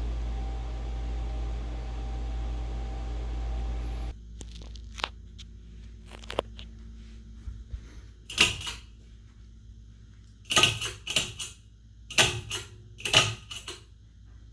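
A ceiling fan running with a steady whir and hum that stops abruptly about four seconds in. A quieter stretch follows, with scattered clicks and, in the second half, several groups of louder short knocks and rattles.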